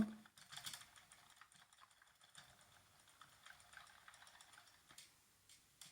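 Faint computer keyboard keys clicking quickly and irregularly.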